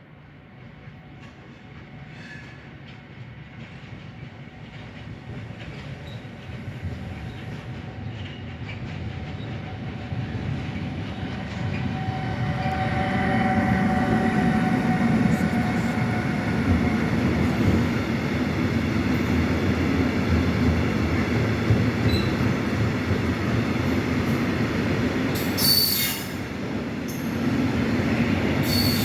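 Freight train hauled by a Siemens Vectron electric locomotive approaching and passing, growing steadily louder over the first dozen seconds, then the continuous rumble of Eas open wagons loaded with logs rolling by. Two brief high-pitched wheel squeals come near the end.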